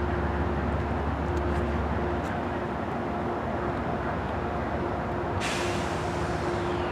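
An approaching train runs with a low rumble and a steady hum. About five seconds in, a sudden burst of air hiss from its brakes starts and tapers off.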